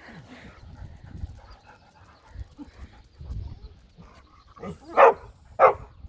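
Dog barking twice in quick succession near the end, two short, loud barks about half a second apart.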